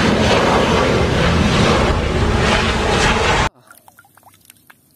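Steady jet-engine noise of a Boeing 737 airliner coming in to land. It cuts off abruptly about three and a half seconds in, leaving faint drips and small clicks of water falling from a wet toy plane.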